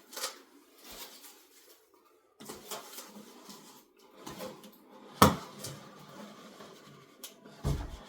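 Cardboard box being handled and worked open: scattered scrapes, rustles and light knocks, with a sharp click about five seconds in, the loudest sound, and a dull thump near the end.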